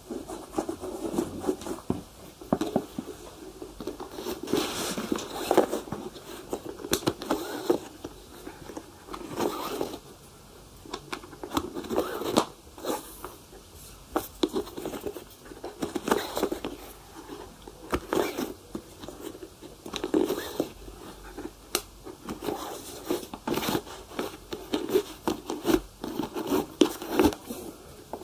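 Shoe polishing: leather rubbed in irregular, quick strokes, with occasional sharp clicks.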